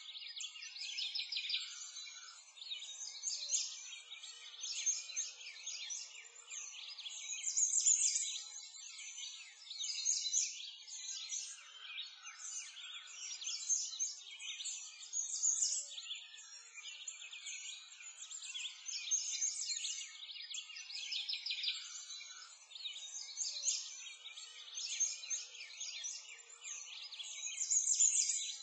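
A chorus of many songbirds chirping and singing at once, quick high calls overlapping and swelling louder and softer every few seconds.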